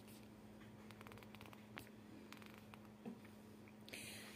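Near silence: room tone with a faint steady hum, a few soft ticks and a brief soft rustle near the end.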